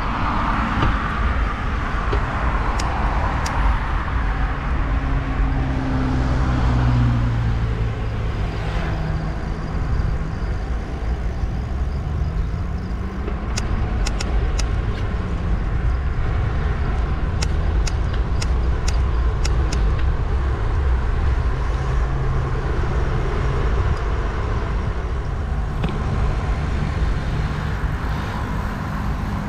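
Road traffic: cars and other vehicles passing, their engine notes slowly rising and falling in pitch over a steady low rumble. A run of sharp clicks comes about halfway through.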